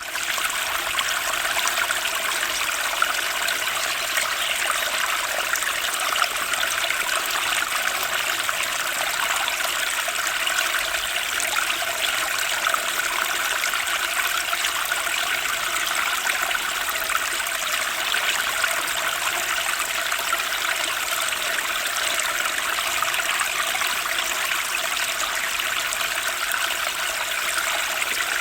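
A turbulent spring stream flowing: a steady, dense rush of water that does not let up.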